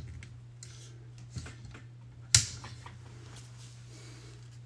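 Light clicks and taps from hands handling equipment at a desk, with one sharp click about two and a half seconds in, over a steady low hum.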